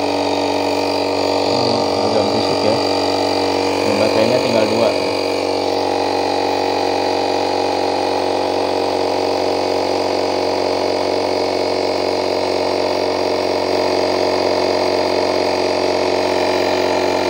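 Notale cordless electric air pump running steadily, a loud, even motor-and-compressor buzz at a constant pitch, pumping air into a deflated football.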